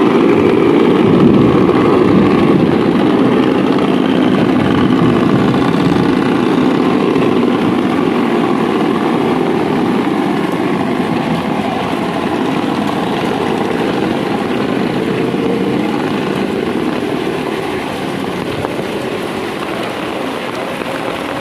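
Heavy rain with wind, a steady rushing downpour that slowly eases.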